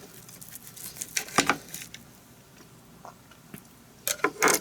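Knife and fork clicking and scraping on a plate as grilled chicken breast is cut into: a few short sharp scrapes a little over a second in, and a louder cluster near the end.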